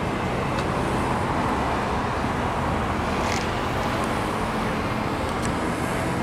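Steady rushing rumble of motor-vehicle noise, with a few faint clicks.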